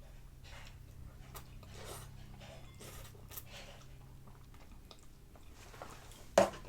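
Close-up chewing and eating of instant fried noodles, soft wet mouth sounds coming irregularly, with a sharp knock near the end.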